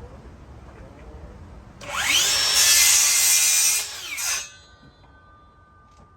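Electric power saw cutting wood: the motor spins up, runs loud through a cut for about two and a half seconds, then winds down.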